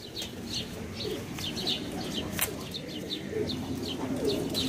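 Pigeons cooing low, with short high chirps about three times a second and one sharp click about halfway through.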